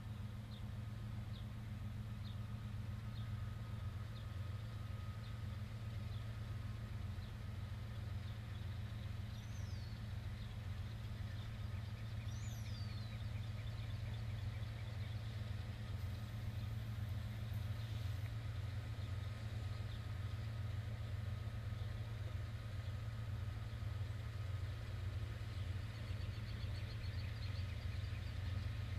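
Kansas City Southern freight train's diesel locomotives running as the train slowly approaches, a steady low pulsing rumble that grows a little louder near the end. Birds chirp now and then.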